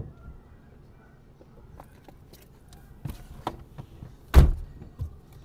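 A run of thuds and knocks on a car's body: a sharp knock at the start, a few knocks about three seconds in, a loud slam-like thud with a short ring just after four seconds, then one more thud.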